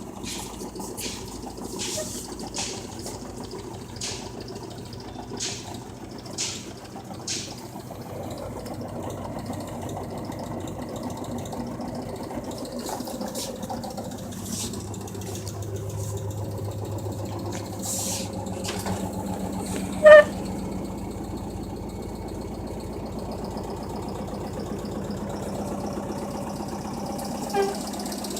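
LG washing machine running, with repeated clicks and knocks at first, then its motor hum building and rising as the drum speeds up. One short, loud pitched sound cuts in about two-thirds of the way through.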